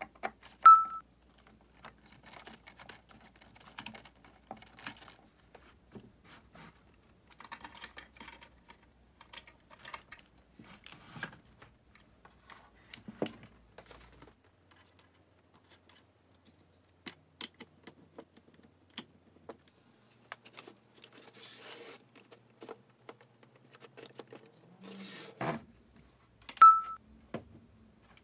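Paper flaps of DIY split-flap display modules clicking over in irregular bursts of light, dry ticks. A short, high beep sounds twice, about a second in and near the end.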